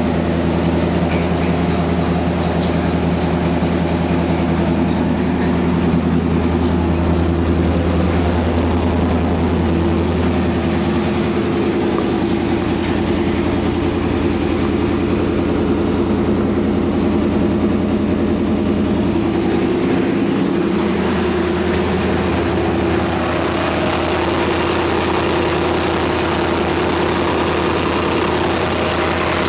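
Chevy 350 small-block V8 with throttle body injection idling steadily in a 1989 Suburban.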